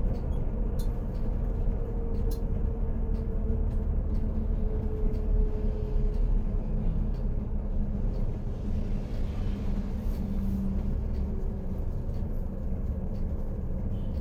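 Volvo B11R coach driving along, heard from inside the front of the cabin: a steady low drone of its diesel engine and road noise, with a few light clicks in the first few seconds.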